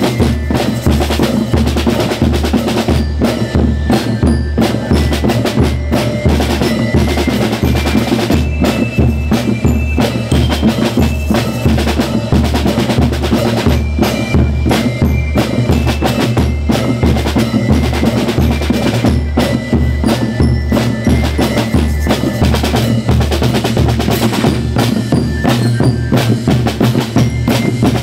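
Banda rítmica (school rhythm band) playing: a bass drum beating steadily about twice a second under snare-drum rolls and the ringing notes of bell lyres.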